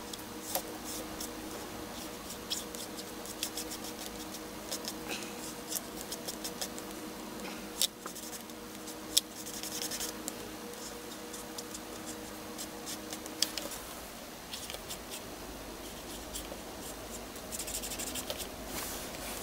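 Handling of paper and a Faber-Castell marker on a journal page: small clicks and taps, short rustles of paper, and the marker scratching on paper. A faint steady hum stops about two-thirds of the way through.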